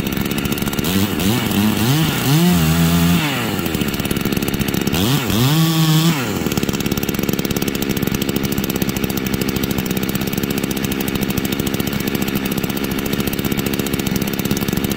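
G466 two-stroke chainsaw engine running while its carburetor is being tuned by screwdriver: it revs up and drops back twice in the first six seconds, then settles into a steady idle.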